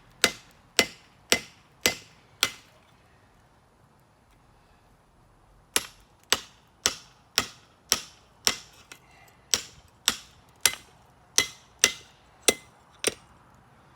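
Hand hammer striking hot steel on an anvil, about two blows a second, each with a short metallic ring: five blows, a pause of about three seconds, then a run of about a dozen more.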